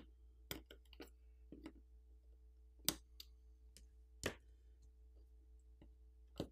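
Small sharp clicks and taps, irregularly spaced, as the snap-on coaxial cable connectors are popped off a Tecno Camon 19's main board with a pry tool. The two loudest clicks come about three and four seconds in.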